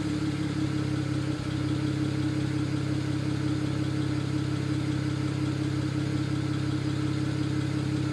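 BMW 135i's turbocharged inline-six idling steadily, with a misfire that does not set a fault code. The sound briefly dips about a second and a half in.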